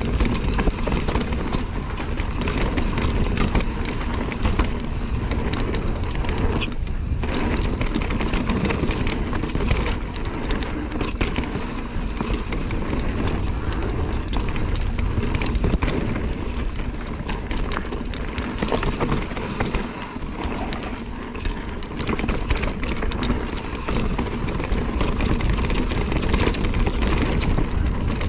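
Mountain bike riding fast down a rough dirt trail: steady wind rush on the microphone, tyres rolling over dirt and a constant clatter of knocks and rattles from the bike over the bumps. The noise briefly thins about seven seconds in.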